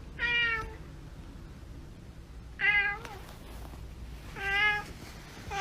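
Domestic cat meowing: three short meows about two seconds apart, with a fourth starting at the end.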